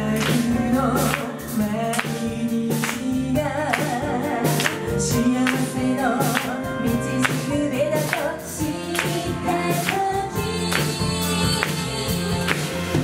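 Live band playing a pop song: women singing over a drum kit keeping a steady beat and electric bass.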